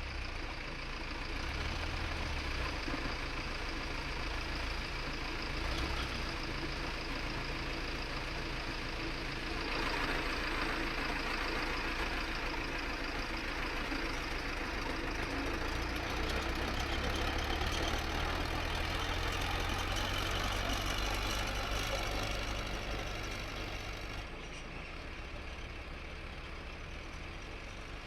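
Diesel engine of heavy machinery running steadily, easing off somewhat about three-quarters of the way through.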